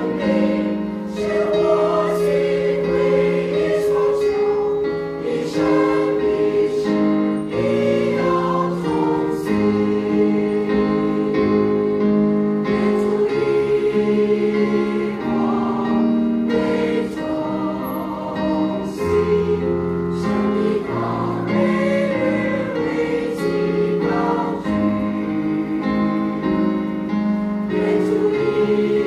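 Mixed choir of men and women singing in parts, the voices holding long notes together and changing chord every second or two.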